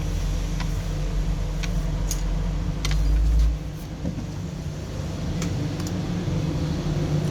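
Low, steady engine-like rumble and hum that drops away about three and a half seconds in, with a few faint small clicks.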